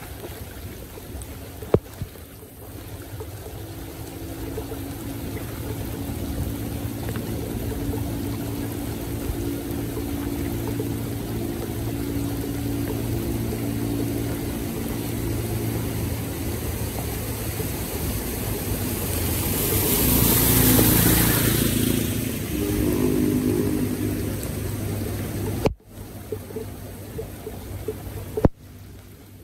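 Muddy floodwater gurgling and rushing down a clogged street drain as it is cleared, with a steady low hum underneath. The rush swells louder for a couple of seconds about two-thirds of the way through.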